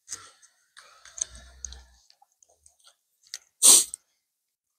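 Light scratching and rustling of a cardboard template against the car's rear panel as it is marked, then one short, loud noisy burst about three and a half seconds in.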